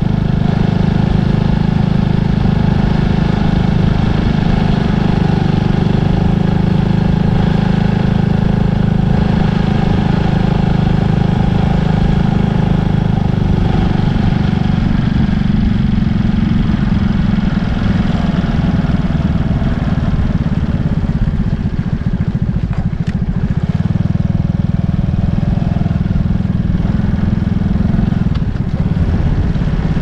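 A motor vehicle's engine running steadily, a constant low hum with a single brief click about two-thirds of the way through.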